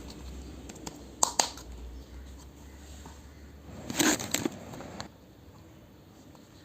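Miniature plastic toy kitchen pieces and their packaging being handled during an unboxing, with a couple of sharp clicks about a second in and a louder cluster of clicks and rustling around four seconds in.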